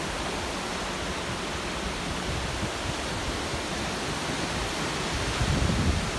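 A steady, even rushing noise with no distinct events, rising slightly near the end.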